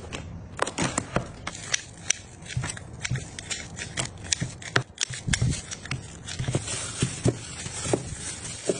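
Irregular clicks, taps and knocks of food containers and packaging being handled and set down, a few per second, over a low steady hum.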